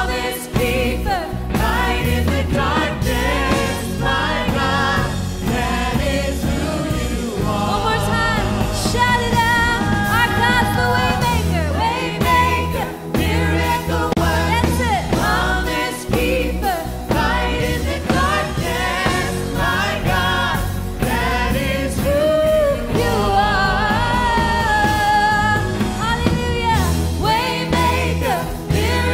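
Church worship band and singers performing a gospel worship song, sung melody over sustained bass notes.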